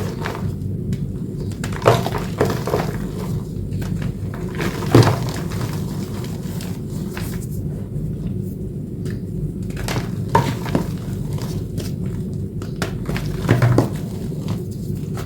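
Blue chalk reformed with corn starch paste being crushed, giving scattered sharp crunchy crackles, the loudest about two and five seconds in, over a steady low background rumble.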